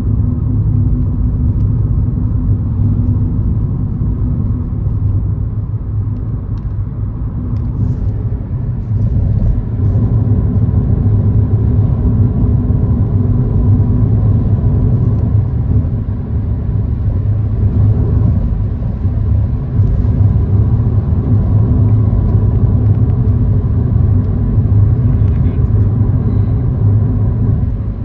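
A car driving along a road: steady low engine and tyre rumble with no change in speed.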